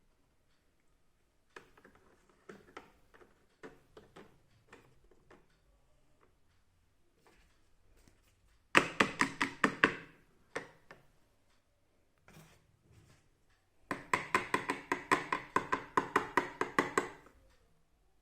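Small plastic toy pieces clicking and tapping as they are handled. There are scattered clicks at first, then two runs of quick clicks at about five to seven a second, one near the middle and a longer one near the end.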